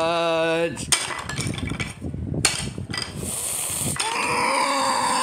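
A drawn-out voice finishes the word "Donuts", then wooden Scrabble tiles clatter and knock against one another and the board, with a couple of sharp knocks. A voice comes in again near the end.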